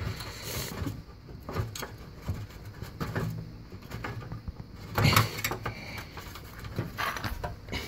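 Light clicks, rubbing and scraping of a hand working the water supply line's fitting at the dishwasher's inlet valve, loosening the nut to disconnect the line. A louder brief knock comes about five seconds in, and another near the end.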